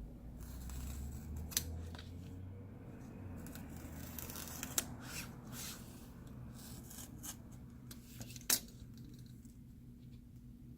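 Scissors snipping replacement adhesive tape for a phone's back cover, with a few sharp snips and rustling from handling the tape.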